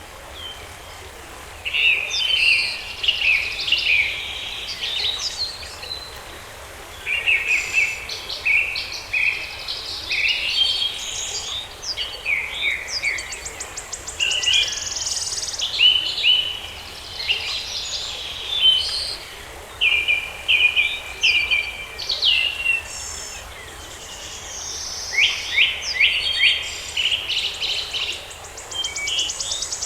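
Several songbirds chirping and singing together in a dense, overlapping chorus of short calls, with quick high trills now and then.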